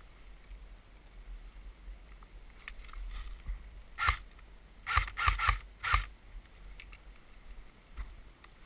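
CYMA AK-47 AEG airsoft replica firing single shots. One sharp shot comes about four seconds in, then four more follow within about a second.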